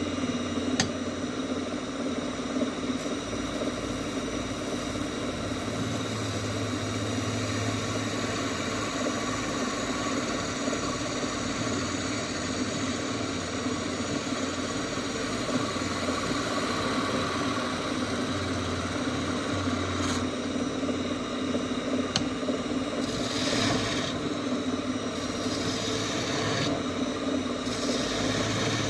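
Wood lathe running steadily with an even motor hum, with a few short bursts of hiss near the end.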